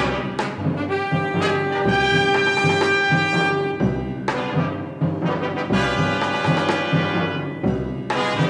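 Background music: orchestral brass with trumpets and trombones over a steady low beat.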